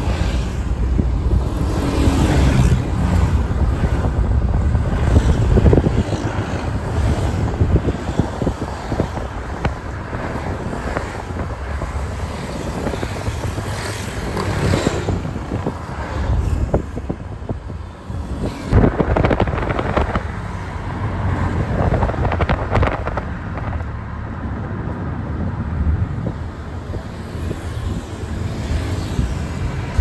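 A car driving on the road: steady low engine and tyre rumble, the noise swelling and easing at times as it moves through traffic.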